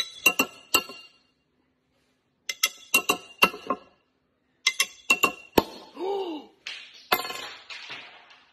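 Glass Corona beer bottle tapped sharply in three quick clusters of three to four ringing clinks. A harder strike about seven seconds in sets the beer foaming, with a fading fizz.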